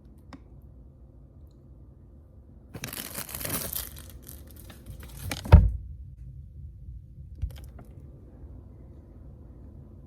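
Plastic snack wrapper crinkling and tearing for about two seconds, followed by a heavy thump and, a couple of seconds later, a lighter knock.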